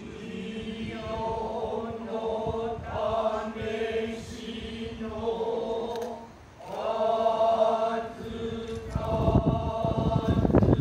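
Noh chanting (utai): long, drawn-out vocal tones with a breath break about six and a half seconds in. A low rumbling noise swells up near the end.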